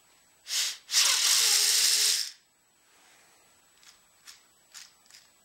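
A short puff, then a loud hiss lasting about a second and a half. Four light clicks follow as small 3D-printed PLA plastic parts are handled and fitted together.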